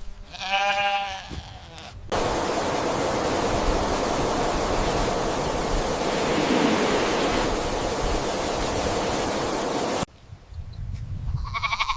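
A goat bleats once at the start. About two seconds in, a loud, steady hiss of noise begins and cuts off suddenly about eight seconds later, followed by a fainter, higher call near the end.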